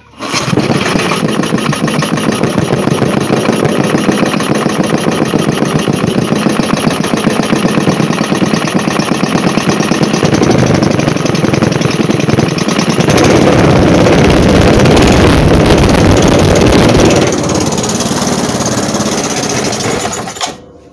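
3 hp Briggs and Stratton single-cylinder engine running steadily with an even putt-putting firing beat. It is louder for a few seconds past the middle and cuts off near the end. The engine runs well now that its timing is found to be fine and its oil has been changed.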